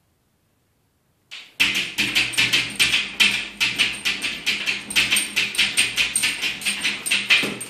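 An Irish setter pawing at a glass shower door, its claws scraping the glass in quick repeated strokes, about five a second. It begins suddenly about a second in.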